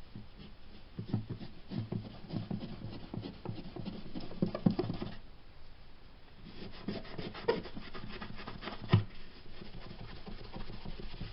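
Polishing compound being rubbed by hand over the lacquered top of an acoustic guitar, in quick uneven strokes with a short pause about five seconds in.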